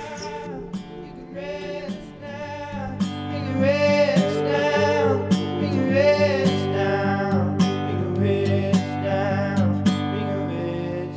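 Background music: a strummed acoustic guitar song that grows louder about three seconds in.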